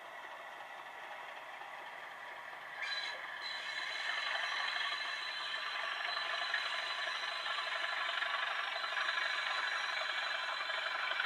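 EM gauge model diesel locomotive running along the track toward the listener. Its running noise grows louder, with a sudden step up about three seconds in.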